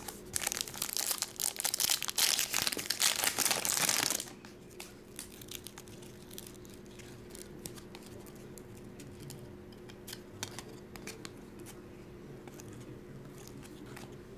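Foil trading-card pack wrapper torn open and crinkled for about four seconds, then quieter rustling and light clicks as the cards are slid and handled.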